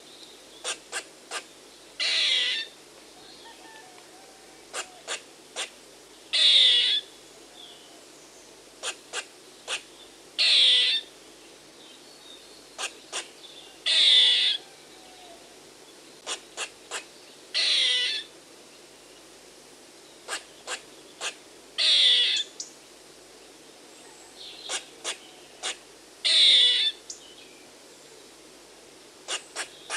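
Squirrel calling: three short, sharp chips followed by a longer rasping call that drops in pitch at its end. The sequence repeats about every four seconds, seven times over.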